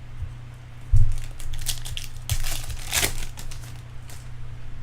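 Foil wrapper of a Bowman Chrome card pack crinkling and tearing as it is opened, in a run of crackly rustles, with a dull knock about a second in. A steady low hum runs underneath.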